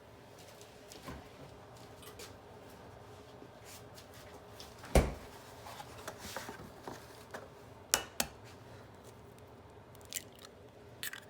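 An egg knocked against a bowl and its shell cracked open, with scattered small clicks and knocks of kitchen handling; the loudest knock comes about five seconds in, and two sharp clicks follow close together about eight seconds in.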